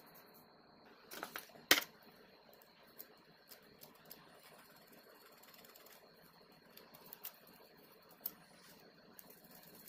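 Scattered small metallic clicks and taps from handling a chrome metal flashlight tube and working a thin pick at its switch; one sharp click just under two seconds in is the loudest, the rest are sparse light ticks.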